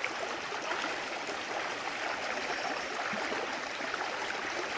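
Forest stream running over and between rocks: a steady rushing and gurgling of flowing water.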